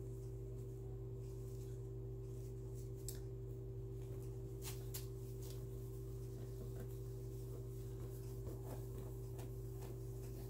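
Quiet room tone: a steady low hum, with a few faint clicks and light rustling handling noises, the clearest about 3 and 5 seconds in.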